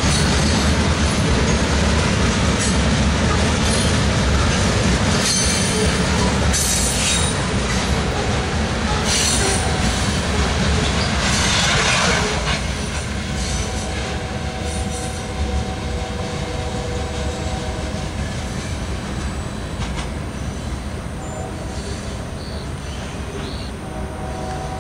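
Loaded covered grain hopper cars rolling past on the rails, a loud steady rumble of wheels with several brief high-pitched wheel squeals. About halfway through the sound drops off as the last cars go by, leaving a fainter receding rumble with a few faint steady tones.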